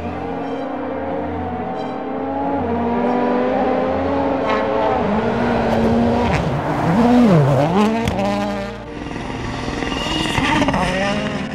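Turbocharged World Rally Car engine at full throttle, its pitch climbing and falling through gear changes, with a few sharp cracks. About seven seconds in the revs drop steeply and climb back as the driver lifts for a corner. Near the end the sound changes to another rally car running flat out.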